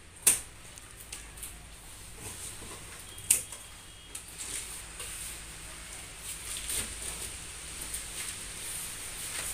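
Plastic packing strap on a cardboard carton being cut: two sharp snaps about three seconds apart. After them come lighter scraping and tapping as a knife works at the top of the box.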